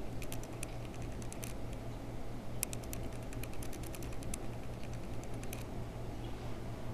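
Two runs of quick, irregular light clicks over a steady low hum: a short run near the start and a longer one through the middle.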